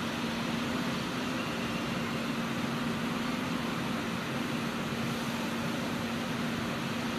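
Electric multiple-unit train rolling slowly toward the listener, giving a steady hum over an even background rush, with no rail clicks.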